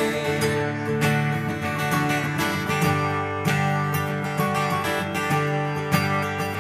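A contemporary worship band playing an instrumental passage between sung lines, with strummed acoustic guitar over sustained chords and a steady beat.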